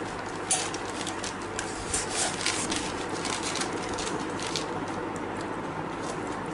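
Whippet puppies eating dry kibble from a stainless steel feeding pan, with irregular small clicks and crunches as the kibble is chewed and shifts on the metal.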